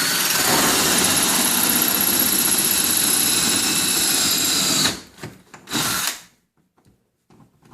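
Electric drill with a 7/8 inch hole saw cutting through a refrigerator's outer wall. It runs steadily for about five seconds, gives a short burst just before six seconds, then stops.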